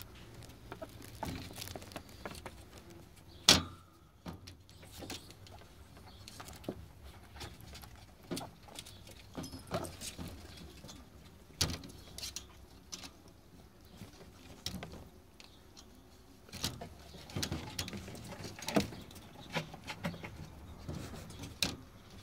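Young ferret kits wrestling in a wire cage: scuffling and rustling on the bedding with irregular knocks and rattles against the cage, the sharpest knock about three and a half seconds in.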